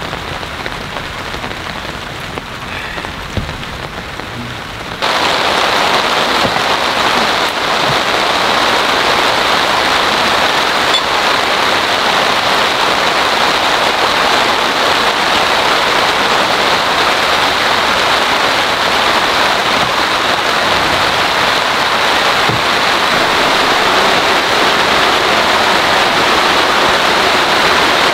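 Heavy rain pouring down in a steady, even hiss; about five seconds in it suddenly becomes louder and denser.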